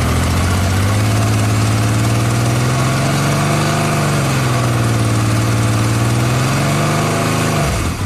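Motorcycle engine revved up from idle: its pitch climbs over about four seconds, eases off a little, then drops back to idle near the end.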